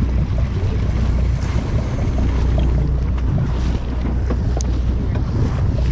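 Boat engine running with a steady low rumble, with wind buffeting the microphone.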